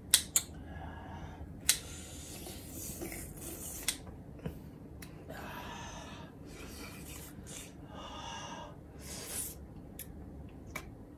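A man slurping and sucking a slice of raw liver: sharp wet mouth clicks and smacks, with three longer breathy sucking sounds.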